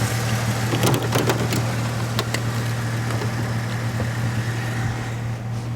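A vehicle engine idling with a steady low hum, with a few sharp crunches and clicks over the first couple of seconds.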